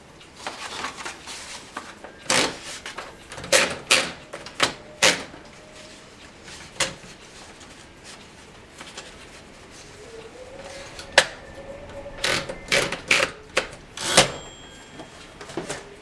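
1958 Remington Letter-Riter portable typewriter being worked: irregular, widely spaced key strikes and mechanical clacks rather than a steady typing rhythm. The last loud clack, near the end, leaves a brief ringing tone.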